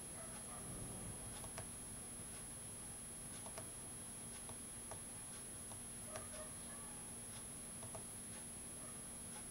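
Quiet room tone: a steady low hum and a thin high-pitched whine, with faint ticks and clicks at irregular intervals.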